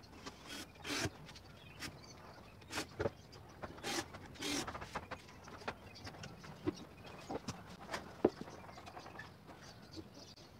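Plywood panels and a plywood box being handled on a workbench: irregular knocks of wood on the table top and a few brief scrapes, with no power tool running.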